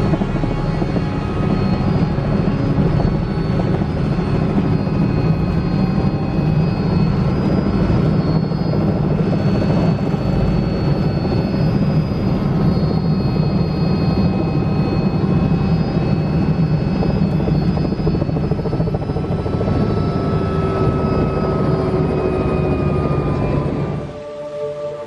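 Robinson R66 turbine helicopter heard from inside the cabin: steady rotor and turbine noise as it descends and settles onto the helipad, stopping abruptly near the end.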